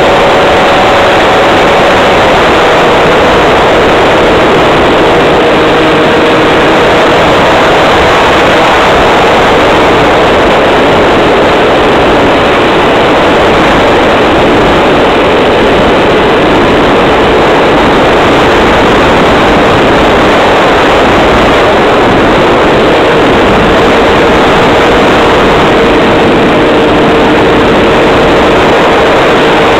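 Model airplane in flight heard through its wing-mounted camera's microphone: a loud, steady rush of wind noise over the motor and propeller hum, whose pitch steps down a little about two seconds in and then holds steady.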